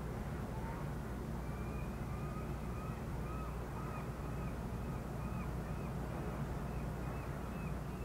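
Outdoor winter ambience: a steady low city rumble, with birds giving short arched calls over and over, about two to three a second, from about a second and a half in.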